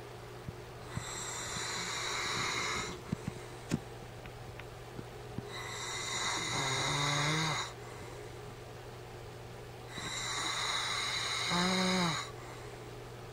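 A man snoring, three long rasping snores about four and a half seconds apart, the second and third each ending in a short throaty grunt with a pitch to it.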